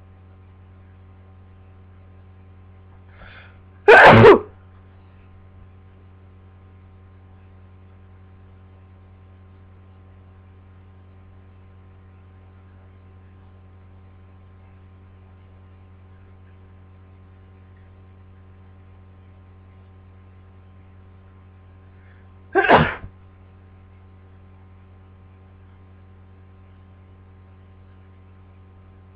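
Two sneezes from a person with a cold, into tissues: a short intake of breath, then a loud sneeze about four seconds in, and the same again about twenty-two seconds in. A steady low hum runs underneath.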